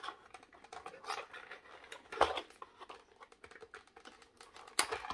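Cardboard box and its packaging being handled while a diecast model car is worked loose inside it: light rustling and scraping with scattered small clicks, and two sharper clicks, one about two seconds in and one near the end.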